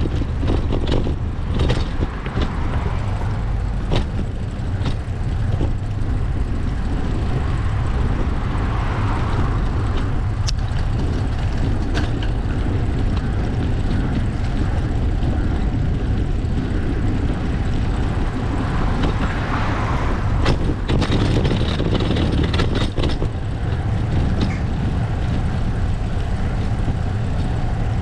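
Steady wind rumble on a GoPro microphone during a bicycle ride, with scattered clicks and rattles. Motor vehicles pass twice, about a third and two-thirds of the way through.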